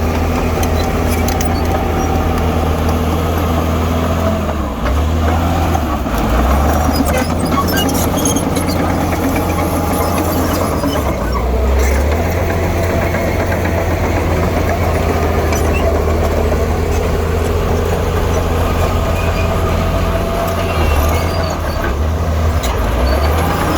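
Heavy-equipment diesel engine running steadily under load, its pitch shifting a little from time to time, with scattered metallic clanks and knocks.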